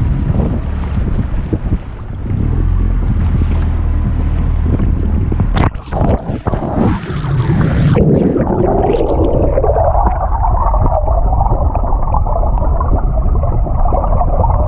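Wind and water rush past the side of a moving boat. About six seconds in there is a sharp splash as the microphone is plunged underwater. From then on the sound is a muffled underwater rush, with a tone that dips low and then climbs.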